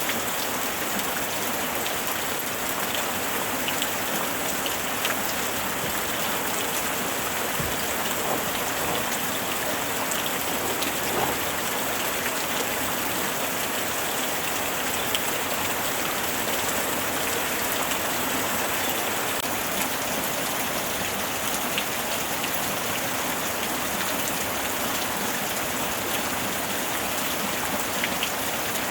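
Steady light rain falling without thunder, an even hiss with scattered individual drops tapping on a surface.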